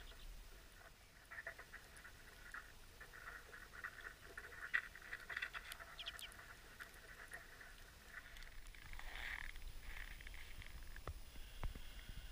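Faint, short chirping calls from a small flock of finches, pine grosbeaks among them, feeding on seed on the snow, with a few light ticks. The calls cluster in the first half and come again briefly later, over a low rumble.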